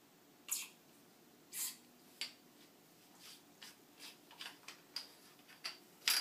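Faint, scattered scrapes and clicks of small objects being handled by hand: a dozen or so brief sounds, with a louder cluster near the end.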